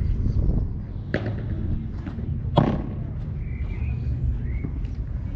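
Padel ball knocks: two sharp strikes about a second and a half apart, the second the louder, then a few fainter ticks, over a steady low rumble.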